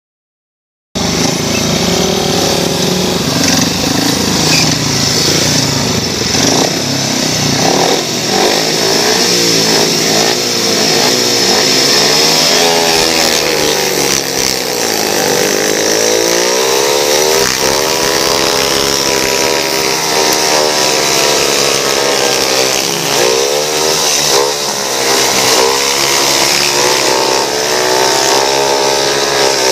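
Speedway bike engines racing, heard from an on-board camera: 500cc single-cylinder methanol engines at full throttle. The pitch rises and falls as the bikes drive through the bends, over a steady high hiss. The sound starts suddenly about a second in.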